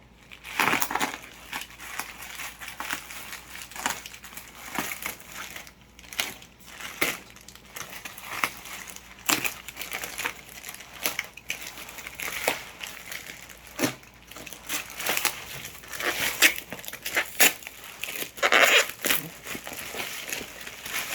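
Plastic packaging crinkling, rustling and tearing as a parcel is opened by hand, with irregular crackles and sharp clicks throughout.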